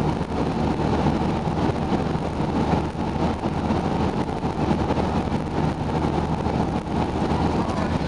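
Steady road noise of a car driving at motorway speed, heard from inside the car: an even drone of tyres, engine and wind, mostly low-pitched.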